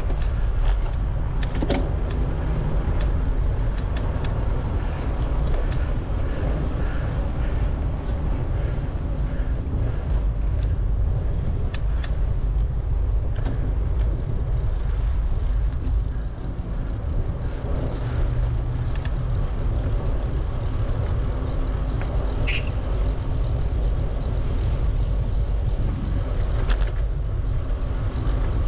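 A bicycle ridden along a paved trail: steady wind and road rumble on the microphone, with scattered short clicks and rattles throughout.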